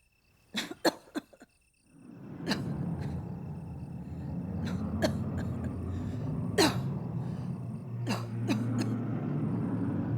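An elderly woman coughing: a quick cluster of short coughs, then from about two seconds in a long, heavy coughing fit with sharper coughs breaking through it.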